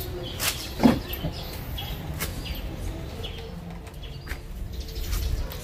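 Birds calling in the background, with a few short sharp clicks, the loudest about a second in.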